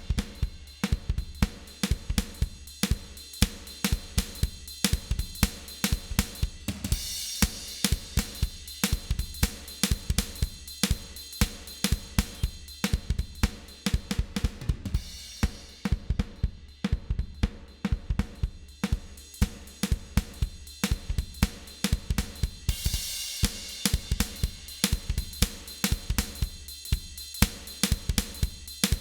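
Recorded drum kit groove (kick, snare, hi-hat and cymbals) played back through an Allen & Heath GL2400 analog console while its high-frequency shelf EQ, fixed at 12 kHz, is adjusted. The treble gets brighter about every eight seconds.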